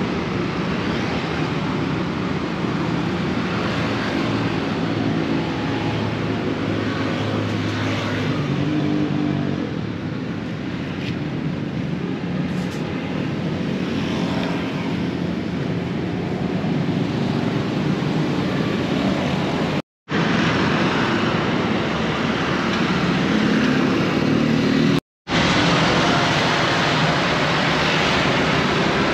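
Street traffic: vehicle engines running close by over a steady mix of outdoor noise. The sound drops out for an instant twice in the last third.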